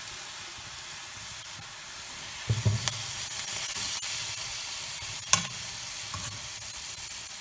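Diced tomatoes and onions sizzling in oil in a stainless steel frying pan while a metal spoon stirs them. A few sharp knocks from the spoon on the pan come through, the loudest about five seconds in.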